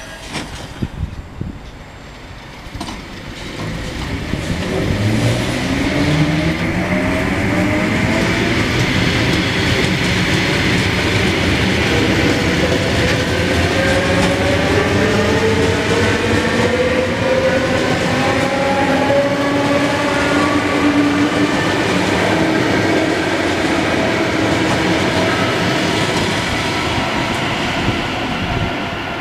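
ЭП2Д electric multiple unit accelerating along the platform. Its traction drive whines in several tones that climb steadily in pitch from about four seconds in, over loud, steady running noise of wheels on rail.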